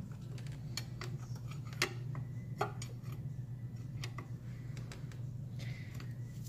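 Light metallic clicks and clinks of a loose steel socket being handled and fitted onto the drive belt tensioner bolt, with two sharper clinks a couple of seconds in. A steady low hum runs underneath.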